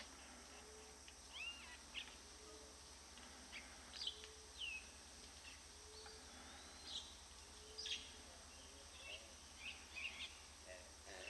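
Wild birds chirping and whistling: short high chirps and falling whistles scattered throughout, over a soft low note repeated roughly once a second and a faint steady low hum.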